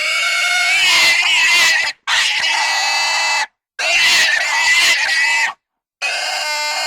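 Pig squealing loudly in long, high-pitched, wavering squeals of one and a half to two seconds each, four in a row. Each one cuts off abruptly into a short dead silence before the next.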